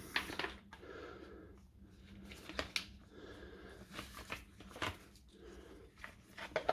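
Small plastic and metal parts of a DeWalt DCH273 rotary hammer being handled and fitted together by hand: scattered light clicks and taps with soft rustling between them.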